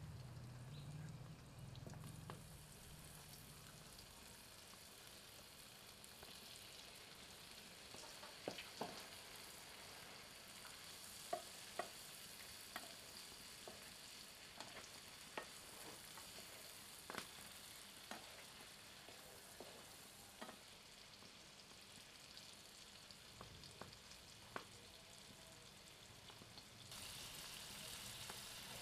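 Paneer cubes frying in hot oil in a nonstick frying pan: a quiet, steady sizzle, with scattered sharp clicks as a wooden spatula turns the cubes. Near the end the sizzle grows louder.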